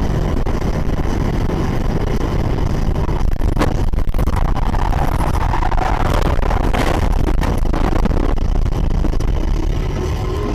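Loud, steady rumble of a car at speed heard from inside the cabin as it runs off the road onto rough dirt, jolting, with a few sharp knocks about three and a half to four seconds in and again near seven seconds.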